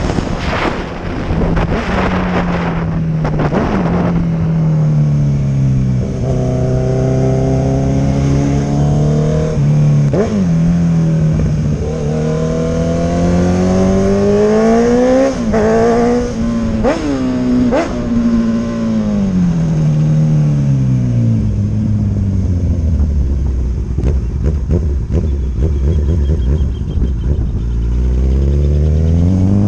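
Honda CB1000R's inline-four engine through an aftermarket sport exhaust, revving up and easing off several times, with a few sharp cracks in the middle. It drops to a low, steady rumble in the second half and climbs again near the end.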